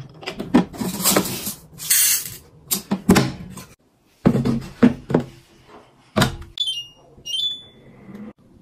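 Plastic clicks, rattles and knocks as a rice storage box is opened and a nonstick inner pot is set into a Daewoo rice cooker. A sharp clack comes about six seconds in, then the cooker's control panel gives a short run of electronic beeps.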